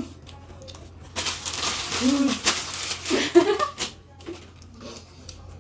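Plastic chip packet crinkling and rustling as it is handled and pushed aside, a crackly rustle that starts about a second in and lasts a few seconds, with brief bits of a woman's voice.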